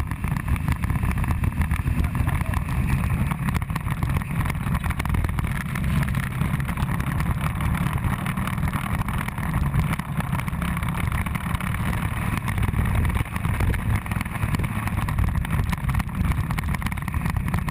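Steady low rumble of riding a motorbike on the open road: the bike's engine drone mixed with wind and road noise on a bike-mounted camera's microphone.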